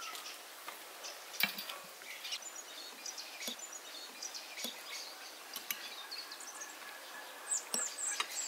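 Small birds chirping in short high calls, with a burst of chirps near the end, and scattered light clinks of forks on plates.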